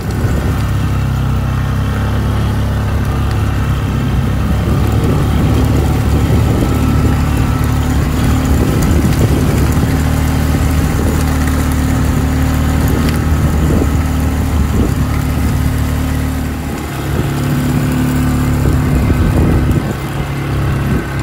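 A small vehicle's engine running steadily while it tows an old combine feeder-house chain dragged over the dirt yard to level the ruts. The engine note dips and changes briefly about three-quarters of the way through.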